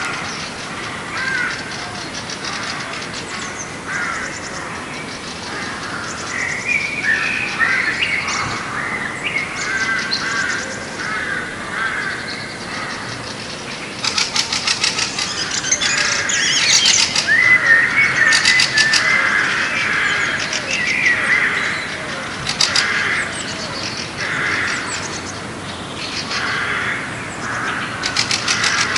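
Several birds calling and chirping at once, a busy mix of short calls. From about halfway through come louder bursts of rapid chattering.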